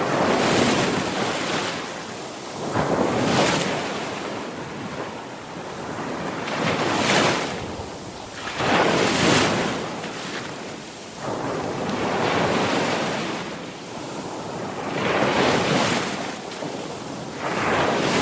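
Sea waves breaking and washing ashore, in a steady rhythm of surges that swell and fall every few seconds.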